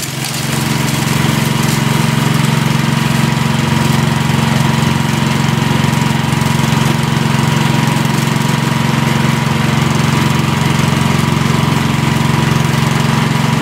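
Small-engine-driven impact mill running steadily at speed, crushing hard-rock ore as it is fed into the hopper: a loud, even engine drone with a thin steady whine above it and a rushing hiss of rock being milled.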